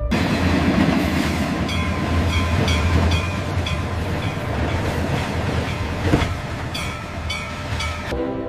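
Freight train rolling past: steady rumble and rattle of the wagons, with wheels clacking over rail joints about twice a second, in a run a couple of seconds in and again near the end.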